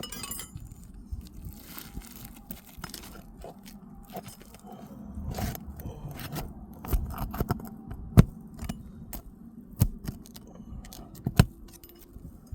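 A tool scraping and clicking against asphalt roof shingles as roofing nails are worked loose and pulled, with several sharper knocks in the second half.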